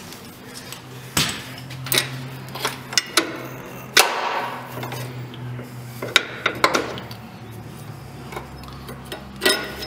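Metal clinks and knocks of a wrench, nut and sway bar end link being worked free and pulled out of the strut bracket: a handful of sharp separate clicks, the loudest about four seconds in, over a steady low hum.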